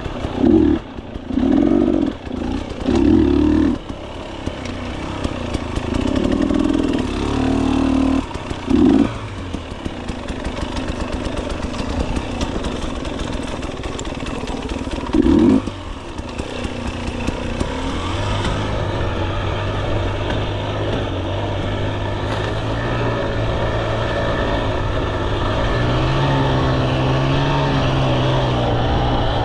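KTM 300 XC-W two-stroke enduro motorcycle engine, blipped in short sharp bursts of revs through the first nine seconds and once more about halfway. After that it runs more steadily under way, its pitch rising and falling.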